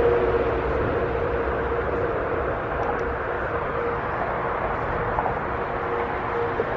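Steady outdoor background noise of distant vehicles, with a faint steady hum that stops near the end.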